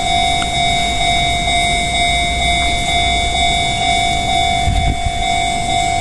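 Japanese railway level-crossing warning bell, its electronic clang repeating steadily while the crossing signals flash and the barrier comes down to warn of an approaching Enoden train.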